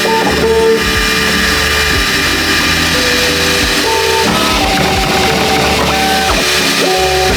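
Background music with held, stepping notes over a steady beat.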